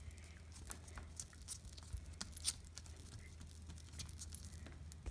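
Faint, scattered crackles and ticks of Gorilla double-sided tape being pulled off and pressed along wooden craft sticks, over a low steady hum.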